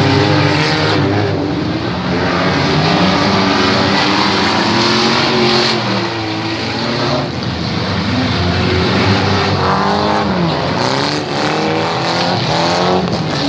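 Several demolition-derby car engines revving at the same time, their pitches rising and falling against one another.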